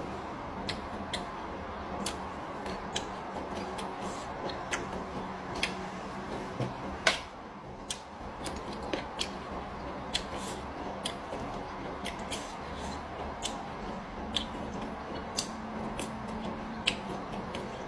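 Close-up eating sounds of chewing raw petai (stink beans) and raw vegetables with sambal: frequent short crunches and lip smacks, one louder about seven seconds in, over a steady background hum.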